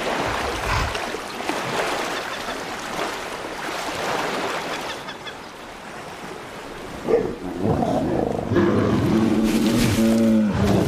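Lake water washing and lapping on a shingle shore, a rushing noise with a few soft thumps. About eight seconds in, soft music with long held notes comes in over it.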